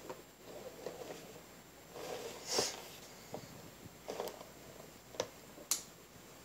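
Unboxing noises from goggle packaging: a cardboard box and clear plastic tray being handled, with a louder rustle about two and a half seconds in and a few sharp clicks and taps in the second half.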